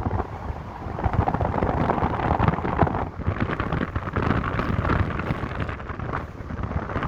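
Wind buffeting the microphone over a low, uneven rumble.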